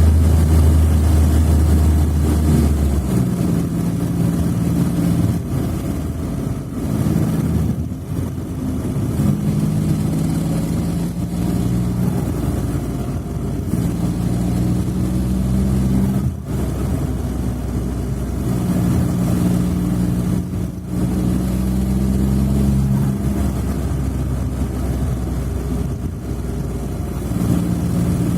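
Smart fortwo 451's three-cylinder engine running, its pitch changing in steps several times as engine speed rises and falls. A deep, loud tone is held for the first few seconds, and the sound dips briefly about halfway and again about two-thirds through.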